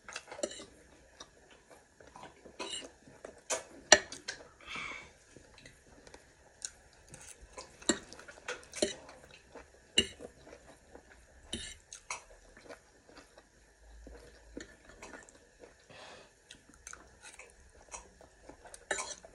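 Eating sounds: scattered clinks and taps of utensils against a plate, with soft chewing between them. The sharpest clicks come about 4, 8, 10 and 11.5 seconds in.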